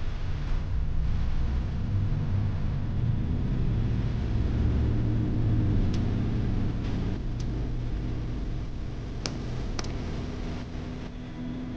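A steady low rumble that eases off near the end, with a few sharp clicks in the second half.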